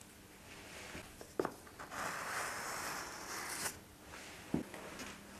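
Plastic silicone former drawn along a fresh bead of silicone sealant where the toilet bowl meets the floor, a rough scraping for a couple of seconds in the middle, with a few light knocks of the tool before and after.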